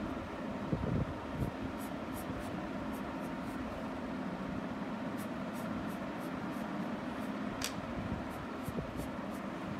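Green felt-tip sketch pen stroking on paper: faint, repeated short scratches, about two a second, over a steady fan-like hum, with one sharper tick near the end.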